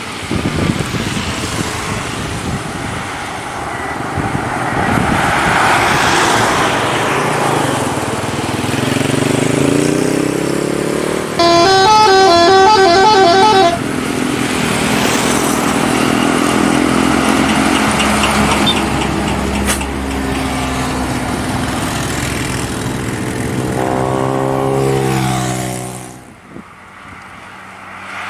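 Bus and traffic engine noise going by, broken by a bus's multi-tone musical 'telolet' horn playing a short stepping tune for about two seconds near the middle. Near the end a rising tone sounds, then the noise drops away.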